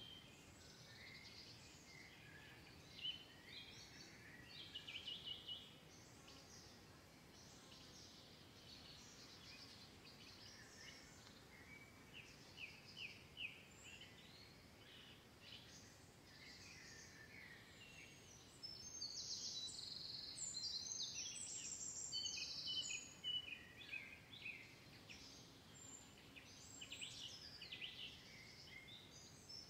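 Faint birdsong: many short, high chirps and trills, busier and louder from about two-thirds of the way through.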